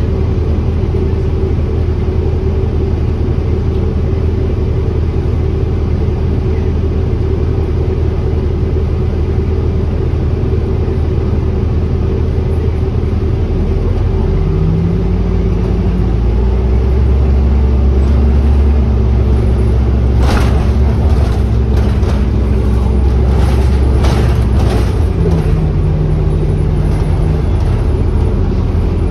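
Cabin sound of an Orion hybrid-electric city bus under way: a steady low drive drone with a pitched hum. About halfway through the hum rises and grows louder as the bus pulls away, and a run of sharp rattles and clatters comes about two-thirds of the way in.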